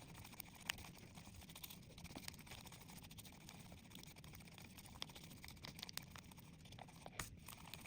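Near silence: faint room tone with scattered light clicks and taps, small handling sounds of working at a table.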